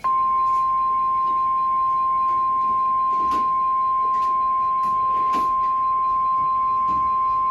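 NOAA Weather Radio warning alarm tone, the single steady 1050 Hz tone that signals a warning such as a severe thunderstorm warning. It starts abruptly and holds one unchanging high pitch, with faint crackles of static underneath.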